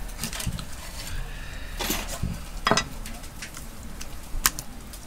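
Kitchen utensils clattering: a few sharp knocks and clinks, the loudest a little past the middle, with a short sharp click near the end.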